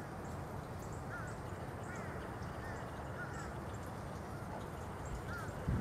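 Birds calling: short, arched chirps repeated about once a second, some in quick pairs, over a steady background rush.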